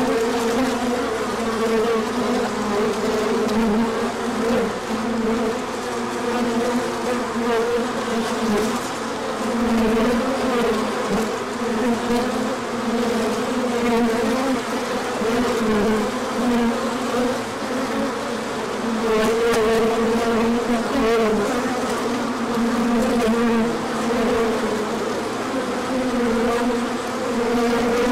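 Many honey bees buzzing at a hive: a steady, dense hum whose pitch wavers slightly, with no break.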